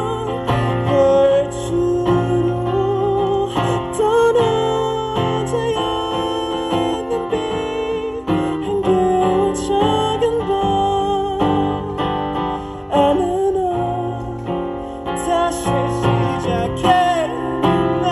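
Live song: a man singing long, wavering held notes through a microphone over acoustic guitar accompaniment.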